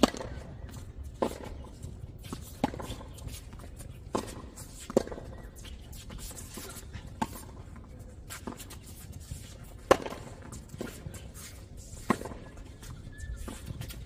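Tennis ball being struck back and forth by racquets in a rally on a hard court: a series of about ten sharp pops, roughly one every second and a half.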